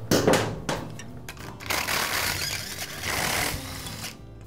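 A few knocks as tools are handled, then a cordless drill/driver with a socket whirring in two bursts, backing out the ignition coil's mounting bolts on a small lawn mower engine.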